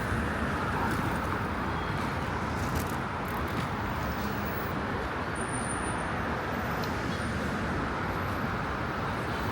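Steady vehicle noise: a constant rumble without breaks or distinct events.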